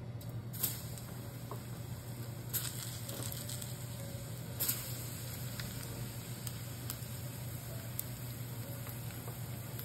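Oil sizzling and crackling in a frying pan as starch-coated pieces are laid into it one at a time, with a few sharp pops spread through it over a steady low hum.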